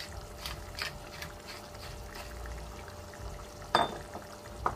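Thick bolognese sauce bubbling in a frying pan on a gas hob, small pops every few tenths of a second. Two sharper clicks come near the end.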